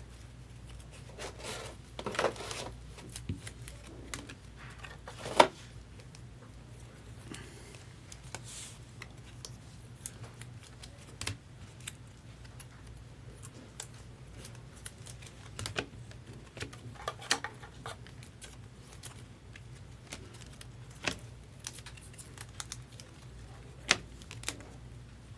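2024 Topps Chrome Cosmic baseball cards being handled and flipped through by hand: soft, scattered rustles and clicks of card stock, with one sharp click about five seconds in.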